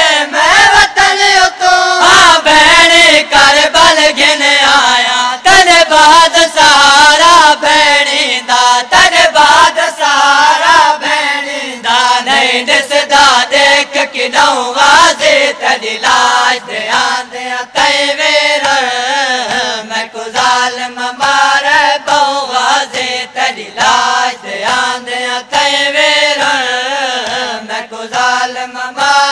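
A group of men loudly chanting a Punjabi noha, a Muharram lament, in unison, with the line rising and falling. Regular sharp slaps of matam, hands beating on chests, keep time under the chant.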